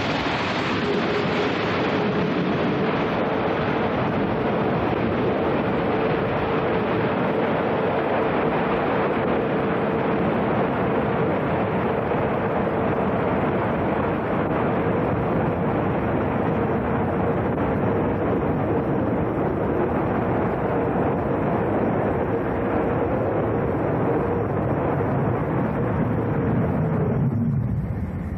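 Jet aircraft engines running steadily: a constant rushing noise with a steady hum running through it, until the hum stops and the sound thins out near the end.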